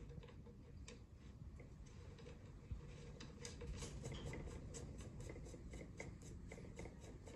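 Faint, irregular metallic ticking and rubbing as a steel jam nut is spun by hand down the oiled threads of a rifle barrel's muzzle, with one slightly sharper click about a third of the way in.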